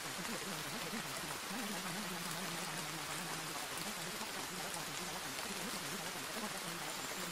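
Steady hiss of masking noise with a faint, low voice wavering beneath it: the buried affirmations of a subliminal track.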